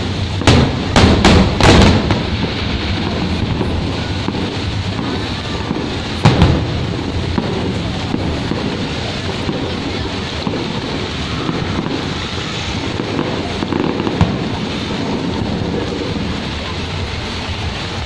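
Fireworks bursting: a quick run of bangs in the first two seconds, one more bang about six seconds in and a few fainter ones later, over a steady hiss of rain.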